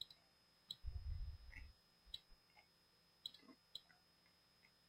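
Faint computer mouse clicks, about half a dozen spaced irregularly, with a low dull rumble about a second in.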